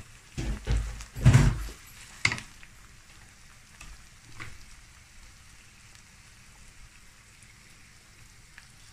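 Minced meat and onions frying in a pan with a steady faint sizzle. In the first two seconds there are several knocks and clatters of utensils on the cookware, and one lighter knock later on.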